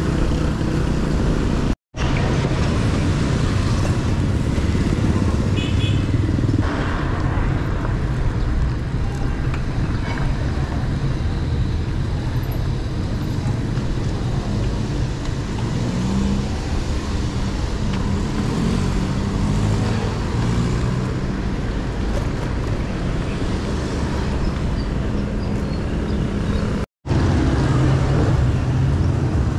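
Wind rumbling on the microphone of a moving bicycle, over city road traffic with motorcycle and car engines passing; in the middle an engine passes close, its pitch rising and falling. The sound drops out twice for an instant, near the start and near the end.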